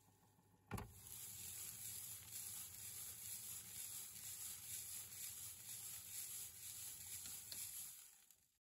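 Rotary tumbler's rubber barrel set down on its drive rollers with a thump about a second in, then turning steadily, its load rattling and swishing inside as a hiss with a faint regular pulse. It cuts off suddenly near the end.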